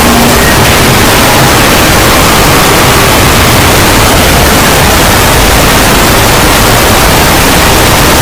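Harsh, heavily clipped and distorted noise at full loudness, like blaring static, from an over-amplified meme sound effect; whatever sound lies beneath is buried in the distortion.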